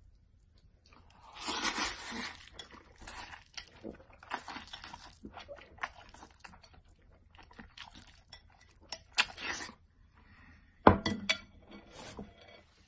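Close-up eating sounds: irregular crunching bites and clinks of dishes and cutlery, with one sharp loud click near the end.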